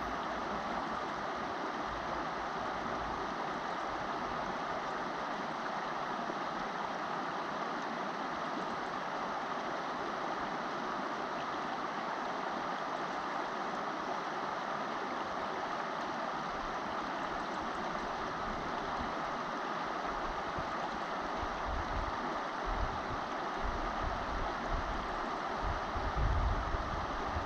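River water rushing steadily over a stony bed. Bursts of low rumble come in over the last several seconds.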